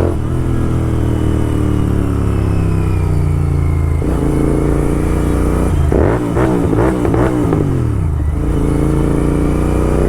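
Royal Enfield GT 650 parallel-twin engine running loud through an aftermarket Red Rooster exhaust while riding. The engine note changes step about four seconds in, then swings quickly up and down in a series of throttle blips between about six and eight seconds, before settling back to a steady note.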